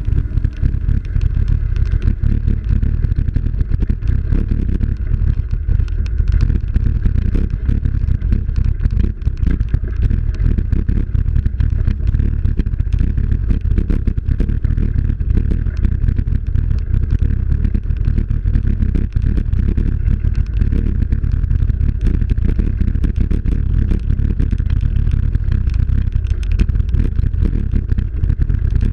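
Steady wind rumble buffeting the microphone of a camera moving along a rough dirt path, with a constant small clatter and rattle from the ride.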